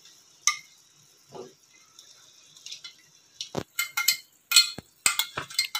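A cooking utensil knocking and scraping against a frying pan as chicken pieces are moved about in simmering sauce. The knocks come as a quick run of sharp clicks in the second half. A faint sizzle of the sauce lies underneath.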